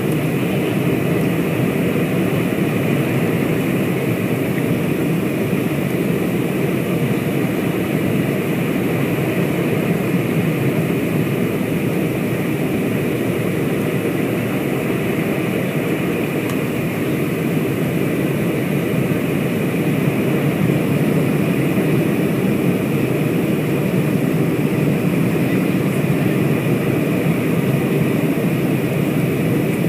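Airliner cabin noise on the approach to landing: the steady rumble of the jet engines and rushing air, heard from a window seat over the wing. It grows a little louder about two-thirds of the way through.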